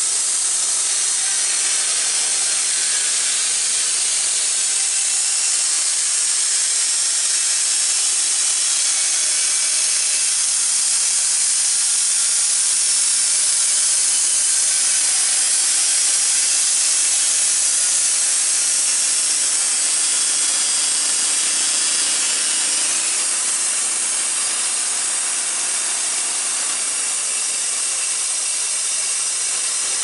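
Wood-Mizer LT15 portable bandsaw mill sawing through a maple cant: a steady hiss of the band blade cutting the wood over the hum of the mill's running power head.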